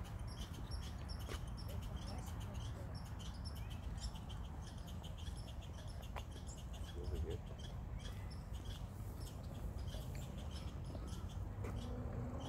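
Small birds chirping, many short high chirps repeating irregularly several times a second over a steady low rumble.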